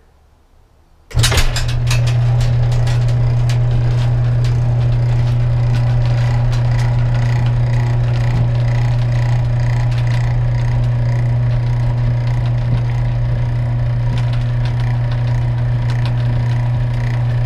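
A one-third-horsepower electric motor driving a 30-to-1 gear reduction box and a roller chain, opening a roll-off observatory roof. It starts abruptly about a second in and runs steadily with a low hum and a constant light chain rattle, then stops sharply near the end.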